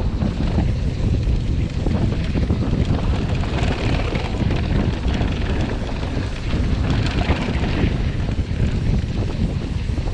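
Wind buffeting the microphone of a mountain bike moving at speed downhill, over the steady rumble of its tyres rolling on a packed dirt and gravel trail. The higher hiss swells a couple of times along the way.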